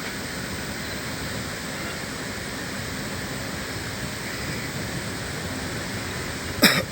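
Steady rushing running noise of a moving passenger train, with a sharp clack near the end.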